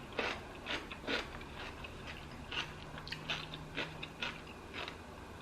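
Close-up chewing of a crunchy pickle spear, with wet crunches about twice a second.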